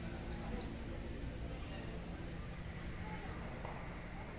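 Bird chirping: a few short, high-pitched chirps near the start and a quick run of chirps midway, over a steady low background noise.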